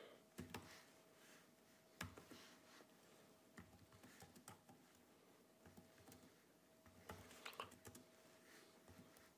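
Faint, irregular clicks of typing on an HP laptop's keyboard, over a faint steady hum.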